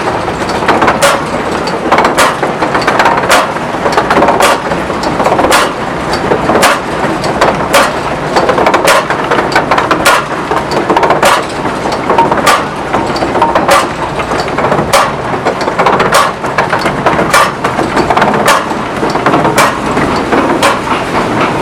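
Wooden and iron machinery of a wind-driven corn mill running, a steady rumbling clatter with a sharp knock repeating about once a second.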